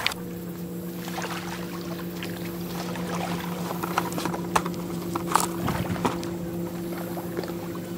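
Steady low drone of a boat engine running at a constant pitch, with scattered small clicks and knocks over it.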